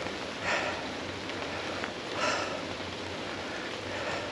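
Steady water hiss with two short splashes about a second and a half apart, as a hooked Atlantic salmon is played close in to the landing net.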